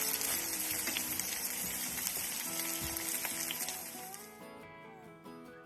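Pork chops sizzling in a frying pan on a wood stove, a steady hiss that fades out about four seconds in. Acoustic guitar music plays underneath and is left alone at the end.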